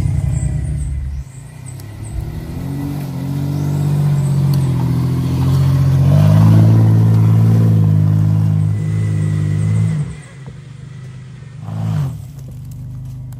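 Mitsubishi Montero's engine revving under load on an off-road climb, the pitch rising and falling; it eases off sharply about ten seconds in, with one short rev near the end.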